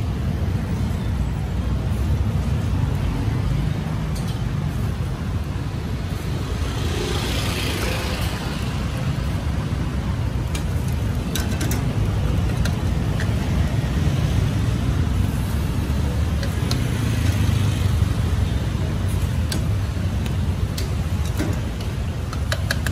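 Street traffic: a steady low rumble of passing vehicles, with one passing more loudly about seven to nine seconds in. A few light clicks are heard over it.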